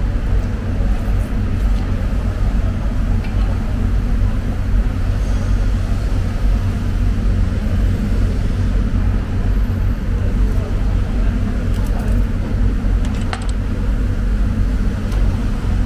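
A steady low rumble of background noise, with a few faint clicks.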